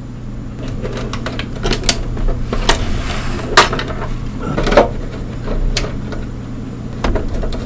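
Hard plastic clicks, knocks and light clatter of an iMac G3's casing and inner parts being handled and taken apart, with the sharpest knocks about halfway through.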